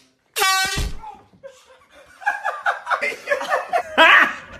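A handheld canned air horn blasts once, loud and short, about half a second in; then laughter follows.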